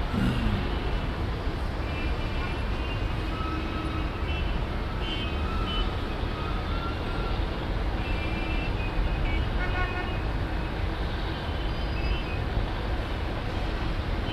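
Steady distant rumble of engines and traffic, with short, faint horn toots at several points.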